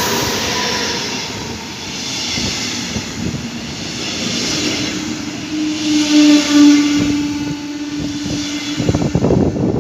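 Electric locomotive and its double-deck passenger coaches passing close by at speed: a loud, continuous rumble of wheels on rail with a tone that falls slightly as the locomotive goes by at the start, then a steady low hum from about halfway through as the coaches run past. Ragged gusting noise near the end, like wind on the microphone.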